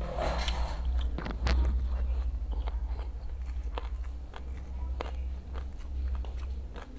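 Close-up chewing of a mouthful of rice and jengkol (dog-fruit beans) in balado chilli sauce, with wet mouth clicks and smacks scattered through it.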